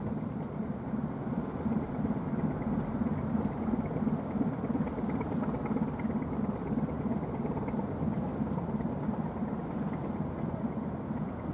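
Steady low rumble of the 203 m wood chip carrier AURORA LIGHT passing close by: its engine drone and the wash along its hull, even throughout with no distinct events.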